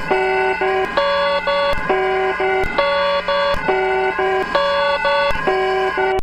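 Electronic emergency-alert (EAS) alarm tone: synthesized notes stepping between a few pitches several times a second in a repeating pattern, over a steady low hum.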